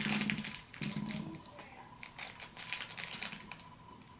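Thin plastic wrapper crinkling and crackling as fingers work a small packet open. The quick crackles come in two clusters: one in the first second or so, and another from about two seconds in to about three and a half.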